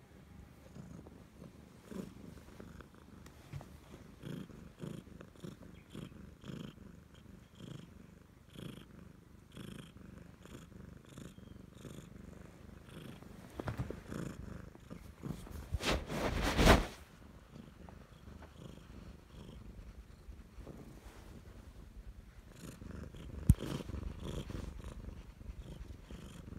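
Siamese cat purring right against the microphone, a steady run of low pulses. Past the middle comes a loud, brief rubbing noise of the cat against the microphone, and a sharp click a few seconds later.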